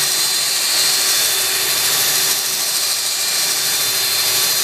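Cordless DeWalt drill spinning a drill brush power scrubber against soapy house siding: a steady motor whine over the rush of the bristles scrubbing.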